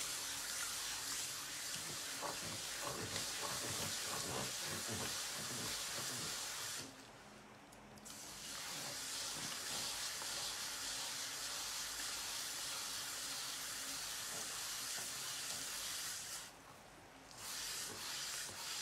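A lump of cold, stiff clay is being centred under wet hands on a spinning potter's wheel, giving a steady, hissing swish. The hiss drops away briefly twice.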